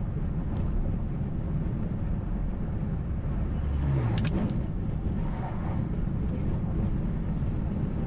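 Steady road and engine rumble of a car driving on a paved rural road. About four seconds in, an oncoming semi-truck with a grain trailer passes close by: the rumble swells briefly and a tone drops in pitch as it goes by.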